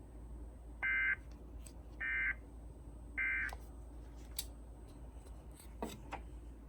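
Emergency Alert System end-of-message signal: three short bursts of warbling SAME data tones about a second apart, marking the end of the alert. A few faint clicks follow near the end.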